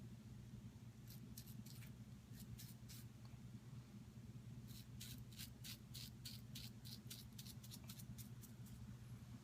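Faint scraping strokes of a Merkur Futur double-edge safety razor cutting stubble: a few short strokes one to three seconds in, then a quicker run of strokes from about five to nine seconds, over a low steady hum.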